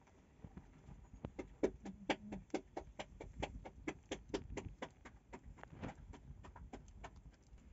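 Wood embers crackling in the bottom of a clay tandoor oven: a quick, irregular run of sharp snaps and pops, several a second, thinning out near the end.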